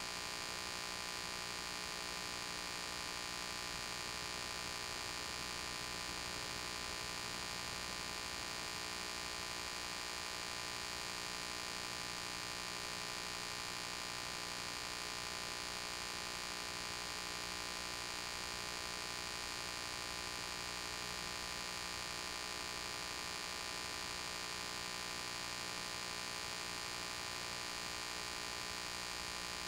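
Steady electrical hum with hiss and nothing else: no crowd, whistle or play sounds, the noise floor of a soundtrack-less film transfer.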